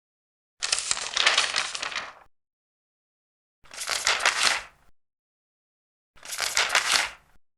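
Three turns of large paper pages, each a papery swish lasting a second or so, with dead silence between them about every two and a half seconds; the first turn is the longest.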